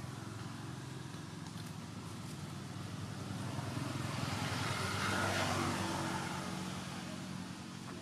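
A motor vehicle passing by: a steady engine hum that grows louder to a peak about five seconds in, then eases off.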